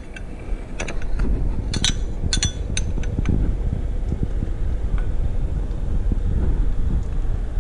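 Several sharp metallic clinks, like a utensil knocking against a cooking pot, in the first few seconds, over a steady low rumble.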